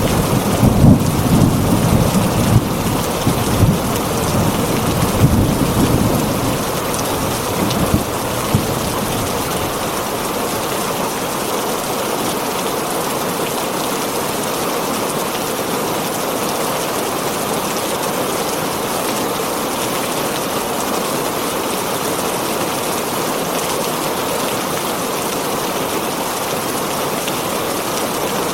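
Heavy rain falling steadily on a tin roof, with a rumble of thunder that swells and fades away over the first several seconds.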